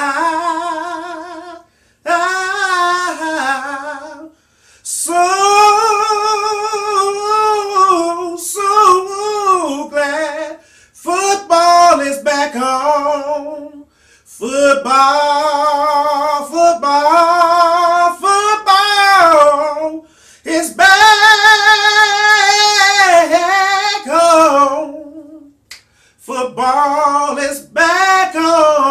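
A man singing alone, unaccompanied, in a high voice with a wavering vibrato, in sung phrases of one to three seconds separated by short breaths.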